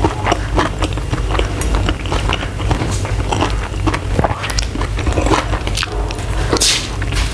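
Close-miked eating: mouth chewing with many small crackles as a cooked shrimp's shell is peeled off by hand, then a crisp bite into the shrimp near the end.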